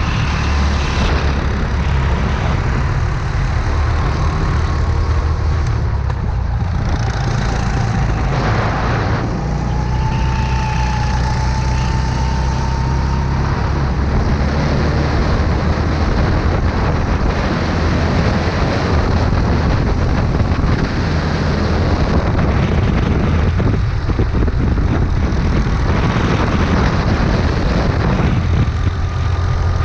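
Go-kart running at speed, heard from onboard: a steady, loud low engine drone with road and air noise, chasing another kart.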